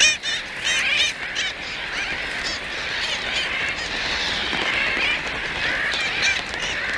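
A large tern colony calling: many high calls overlapping into a constant din, with a few separate calls standing out in the first second or so.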